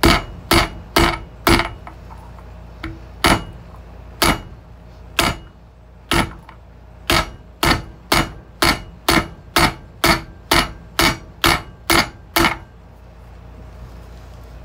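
Rubber mallet tapping a steel socket to drive a new wheel bearing into a dirt bike wheel hub: a series of sharp knocks with a short metallic ring. A few spaced taps come first, then a steady run of about two a second, stopping near the end.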